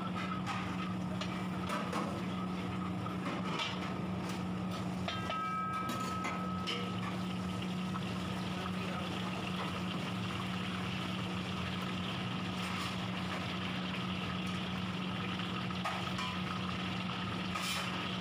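Bay leaves and whole spices sizzling in hot oil in a large kadhai, over a steady low hum. A metal ladle scrapes and knocks against the pan a few times in the first several seconds.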